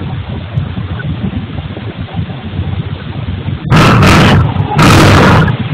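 Machinery noise from a granite-cutting and -processing workshop: a steady low rumble, then, a little over halfway through, very loud harsh bursts of noise, two of about a second each with a short gap, and a third beginning at the end.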